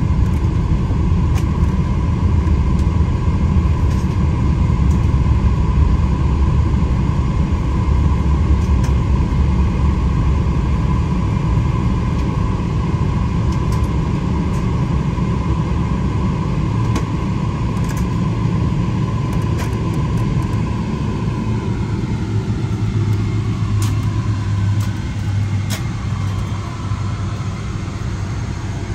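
Cabin noise of a Boeing 777-300ER rolling out after landing: a steady low rumble with a steady whine from the GE90 engines. The whine falls in pitch about three-quarters of the way through and the noise eases as the aircraft slows.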